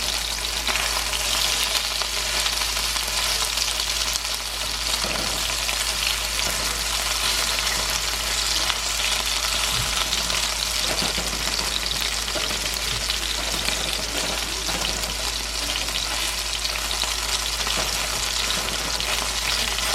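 Chicken pieces frying in hot oil as they brown: a steady sizzle with fine crackling.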